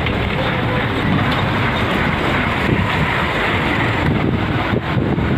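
Steady running noise of a moving vehicle heard from an open window, with wind buffeting the microphone.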